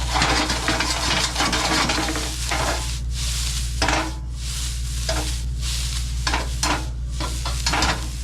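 Chopped garlic, onions, bamboo shoots and green onions stir-fried in a hot pan. They sizzle strongly for about two seconds, then flare up again in short bursts of sizzling, about seven times, each time they are stirred and tossed. A steady low hum runs underneath.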